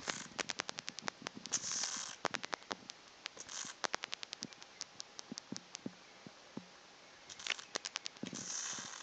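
A grounded bat on a bedsheet, making rapid, irregular sharp clicks in quick runs, with a few short hissy bursts.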